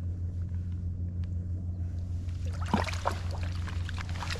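A steady low mechanical hum, with a few short, sharp noises about two and a half to three seconds in.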